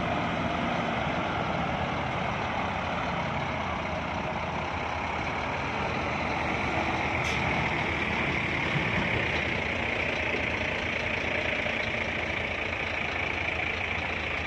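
Scania P460 XT dump truck's 13-litre six-cylinder diesel engine running steadily as the truck drives slowly past at close range, with a single light click about seven seconds in.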